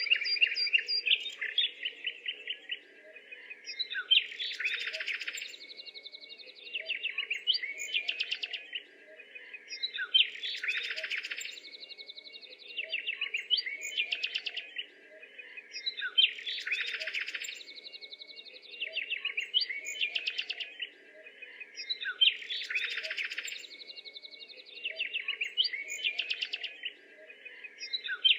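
Birds chirping and twittering in a looped recording, the same burst of song repeating about every six seconds.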